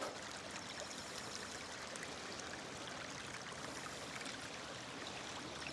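Heavy rain runoff flowing down a flooded channel: a steady rush of water.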